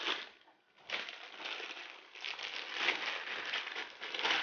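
Clear plastic packaging bag crinkling as it is handled and pulled off a laptop charger: a short rustle at the start, then steady crinkling from about a second in.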